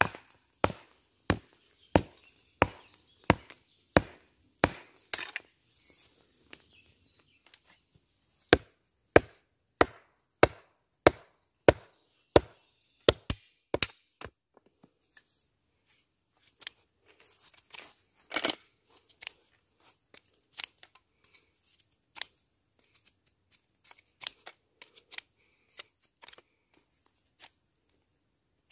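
A blade chopping into wood while a wooden spoon blank is roughed out: steady strikes about one and a half a second. After about 14 s they give way to lighter, scattered knocks and clicks, with one harder stroke a few seconds later.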